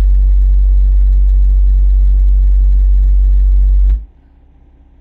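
A 10-inch car subwoofer, powered by a 1500-watt amp, plays a very loud steady 48 Hz bass test tone for an SPL meter reading, with a faint pulsing buzz above it. The tone cuts off suddenly about four seconds in.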